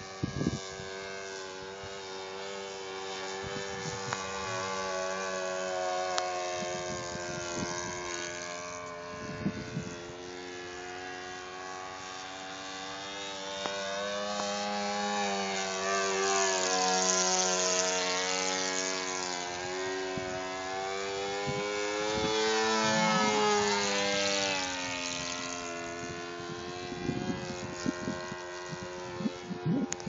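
Saito 82 four-stroke glow engine and 13x6 propeller of a radio-controlled Super Decathlon model plane running in flight. It swells and its pitch bends as the plane makes two close passes, about halfway through and again near three-quarters of the way.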